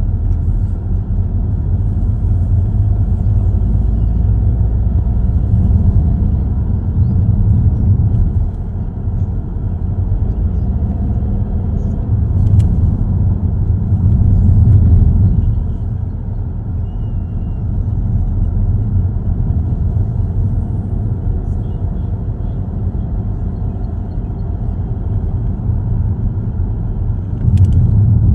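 Car driving, heard from inside the cabin: a steady low rumble of engine and tyres on the road that swells and eases slightly with the bends. Two faint clicks, one about halfway and one near the end.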